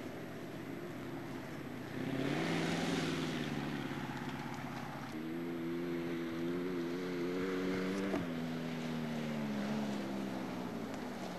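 Off-road racing vehicle engine under load. It grows louder about two seconds in, then a higher engine note climbs steadily from about five seconds and drops sharply just after eight seconds.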